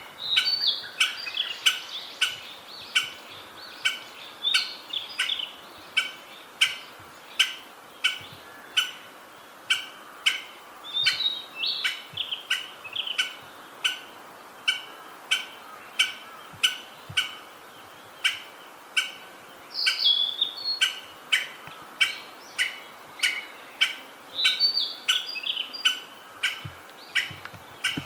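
Wild birds: a sharp, short call or tap repeated steadily about twice a second, with other birds' brief song phrases over it every few seconds.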